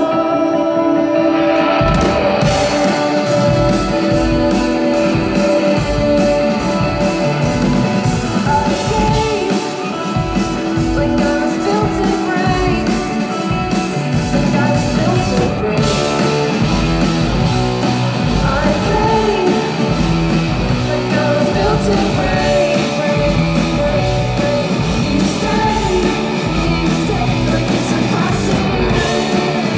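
Indie rock band playing live: electric guitars with singing over them, the full band with bass and drums coming in about two seconds in.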